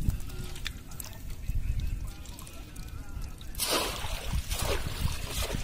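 Water trickling and splashing as a bamboo fish trap is lifted off a pot crowded with live small fish, with a louder burst of splashing a little past halfway.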